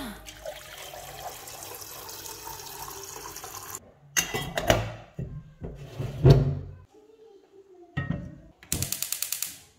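Water running steadily for a few seconds, then several knocks and clatters, and near the end a quick run of rapid clicks.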